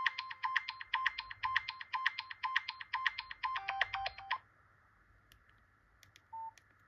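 Nokia 8800 Arte ringtone: a fast, even run of short electronic beeps and clicks that ends with a few lower notes and stops abruptly about four seconds in. A single short beep sounds near the end.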